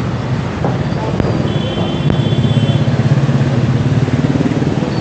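Lorry's diesel engine idling with a steady low rumble. A faint high tone sounds for about a second near the middle.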